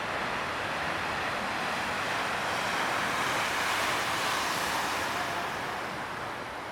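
Surf breaking: a steady rushing roar of waves that swells to its loudest about halfway through and then eases, with wind on the microphone.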